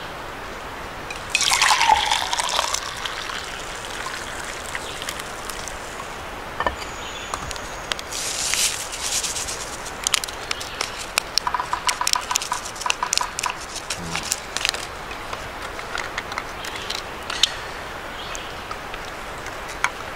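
Water being poured while making coffee: a loud splashing pour about a second in, then lighter trickling, followed by a run of light clicks and taps.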